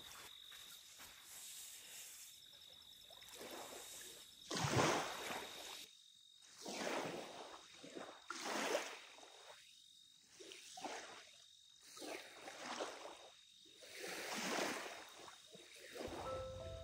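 Quiet outdoor nature ambience: soft swells of rushing noise every two seconds or so, under a steady high, thin tone that fades out about three quarters of the way through.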